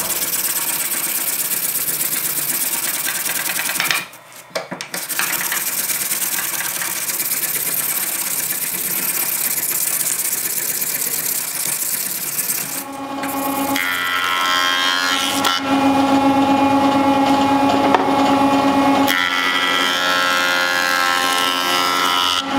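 Electric orbital sander running against a steel axe head, a steady hiss that drops out briefly about four seconds in. From about thirteen seconds a woodworking jointer runs with a steady hum of several tones.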